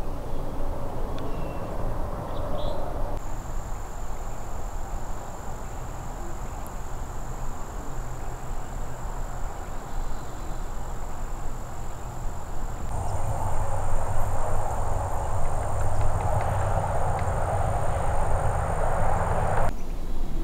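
Outdoor ambience: a steady high-pitched drone over a low rumble. A second, higher drone and louder noise join about two-thirds of the way in, and it all cuts off abruptly near the end.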